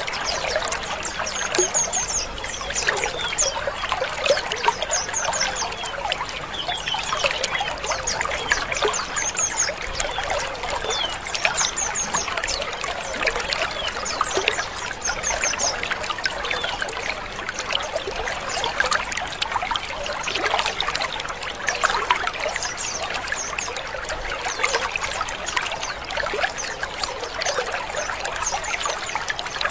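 A colony of white-eyes (pleci) calling together: a continuous, dense chatter of overlapping short chirps and twitters, with sharp high chirps cutting through every second or two.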